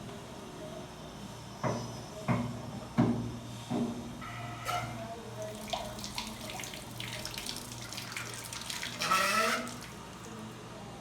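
Water splashing and gurgling inside a concealed toilet cistern as it is worked on by hand, with a few sharp knocks early on from parts being handled and a louder rush of water near the end.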